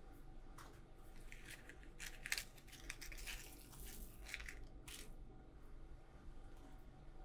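Faint handling sounds: white cotton fabric rustling as it is smoothed flat on a wooden table, then a small box of pins being handled and pins tipped out, a run of short crackles and light clicks, the sharpest about two seconds in.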